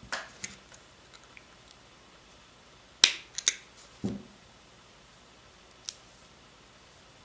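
Scattered sharp clicks and taps of a steel M5 nut and a small 3D-printed plastic part being handled and pressed together, loudest in a quick cluster of clicks about three seconds in, followed by a single dull knock.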